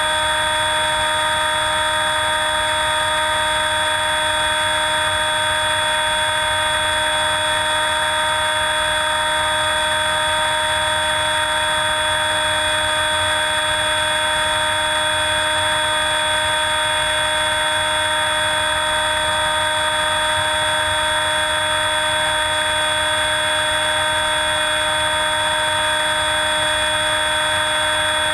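HawkSky 4-channel RC plane's electric motor and propeller running at a steady throttle in flight, heard from a camera on board: an unchanging multi-tone whine over a low rush of wind.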